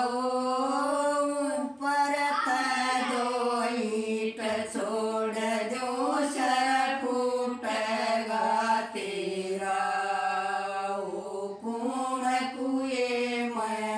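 Women singing a jakdi folk song unaccompanied: a chant-like melody in long, drawn-out notes that slide between pitches.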